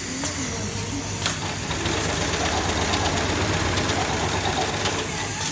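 Computer-controlled industrial pattern sewing machine running, stitching fabric polishing-wheel discs held in a template clamp: a steady mechanical hum, with one sharp click a little over a second in.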